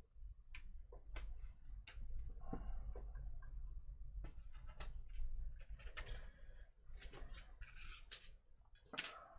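Photo-etched brass parts being cut free of their fret with a hobby knife against a cutting mat: an irregular run of sharp clicks and short scratchy scrapes, with the loudest scrape near the end.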